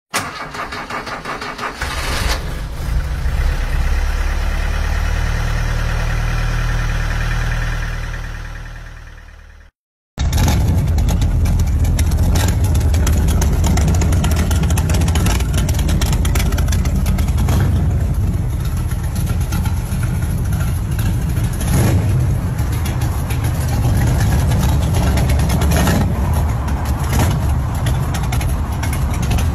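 A classic Ford Mustang's engine running, its pitch rising a few seconds in, then fading away near ten seconds. After that, a 1968 Dodge Charger's engine runs steadily with a few brief louder surges.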